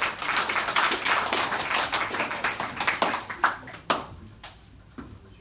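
A class of students applauding: dense clapping for about four seconds that thins out to a few last claps near the end.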